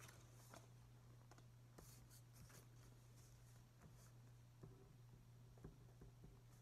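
Faint pen writing on paper, a soft scratching with a few light clicks, over a low steady hum.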